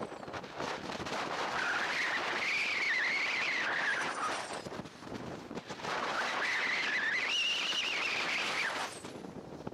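PCM Erwin 5 slope glider whistling through the air on fast passes: a rising, wavering whistle twice, each lasting a few seconds. Strong gusty wind buffets the microphone throughout.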